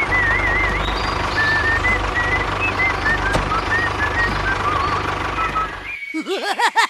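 A toy vehicle's electronic sound effect: a steady engine-like rumble with a thin, wavering jingle on top, cutting off suddenly about six seconds in.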